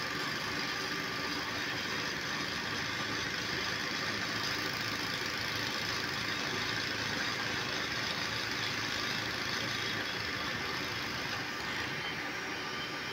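Heavy machinery engine running steadily, a constant drone with a faint steady whine over it.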